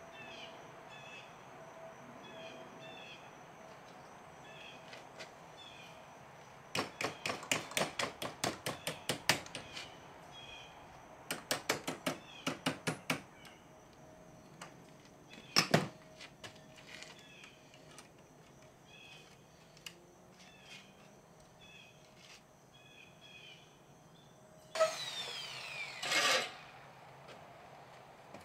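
Hammer striking sheet metal in two quick runs of light taps, about five a second, then one hard blow. Near the end a corded Makita electric drill runs for about a second and a half and winds down.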